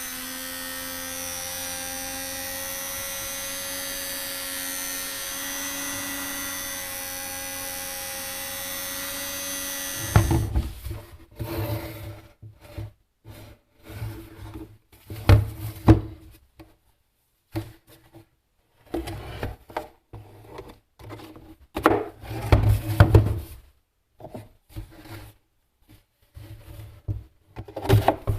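A small electric power tool runs at a steady, even whine for about ten seconds and stops abruptly. It is followed by irregular scraping and rubbing strokes, like filing or sanding by hand.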